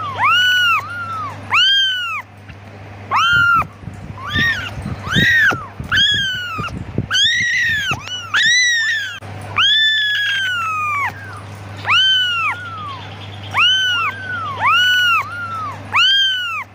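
Young kittens meowing over and over, high-pitched calls that each rise and fall, about one a second, several overlapping in the middle: kittens calling for their mother.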